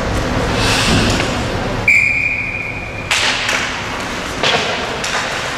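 A referee's whistle gives one steady, high blast lasting about a second, over ice hockey rink noise. Several sharp knocks follow.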